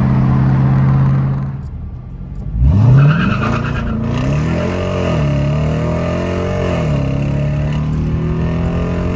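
A 5.7-litre Hemi V8 heard from inside the car's cabin, with the active exhaust open in sport mode. It runs steadily, then about two and a half seconds in it revs up with a sharply rising pitch as the car accelerates. Its pitch rises and dips a few times before settling to a steady run.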